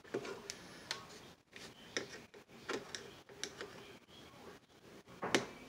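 Irregular small clicks and knocks as hands and a screwdriver work at the back of a Zenith tabletop radio's cabinet, with the loudest knock near the end.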